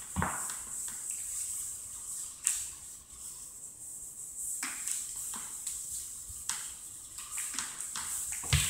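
Chalkboard eraser wiping across a blackboard in uneven strokes, with several sharp knocks against the board.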